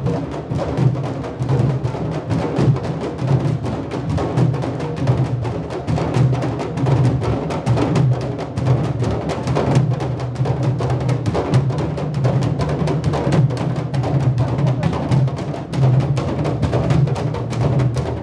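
A street drum band of many marching bass drums playing together, a dense, driving beat that keeps going without a break.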